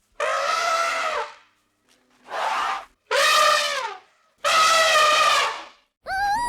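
An animal calling four times, each a loud, drawn-out, brassy call of up to about a second that bends down in pitch at its end.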